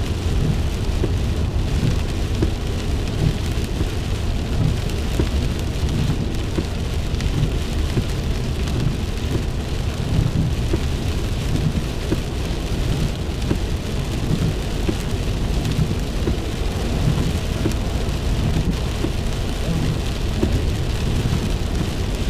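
Heavy rain drumming steadily on a car's roof and windshield, heard from inside the cabin, with the tyres hissing through standing water on the road.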